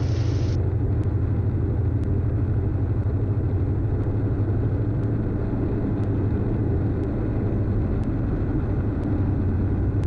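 A Diamond DA42's twin turbo-diesel engines and propellers drone steadily, heard inside the cabin during an instrument approach.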